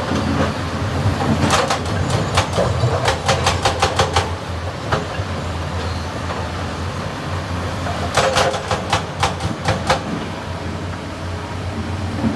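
Excavator's diesel engine running steadily under two bursts of rapid metal clanking, a few sharp knocks a second, about a second and a half in and again around eight seconds in.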